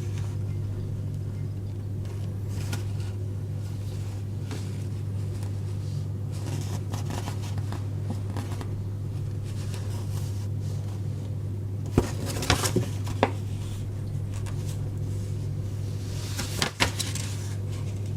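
Steady low hum, with a cluster of sharp clicks and knocks about twelve to thirteen seconds in and two more near the end.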